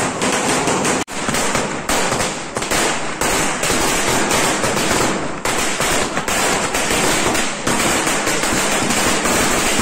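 Firecrackers bursting on a road in a rapid, near-continuous crackle of sharp bangs, starting about a second in.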